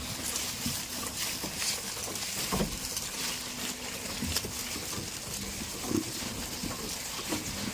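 Goats on a farm: scattered short knocks and rustles over a steady background hiss, with no clear bleats.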